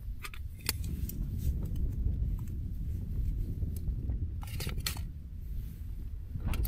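Small sharp clicks and ticks of camping cooking gear being handled and fitted together: one about a second in, a quick cluster around the middle, and more near the end. Under them runs a steady low rumble.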